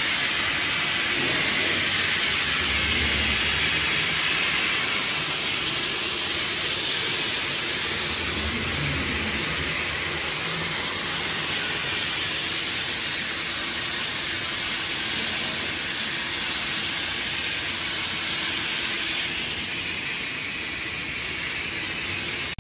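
Steady hiss of an automated PVC tarpaulin eyeleting and cutting machine running, with faint low rumbles about three and nine seconds in.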